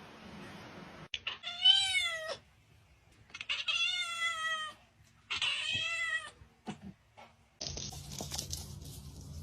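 A cat meowing three times: long, drawn-out meows, each rising and then falling in pitch. Near the end a steady background noise takes over.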